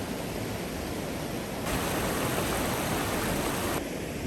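Steady rush of flowing water from a waterfall or stream. It changes abruptly twice, about a third of the way in and near the end, louder and brighter in between.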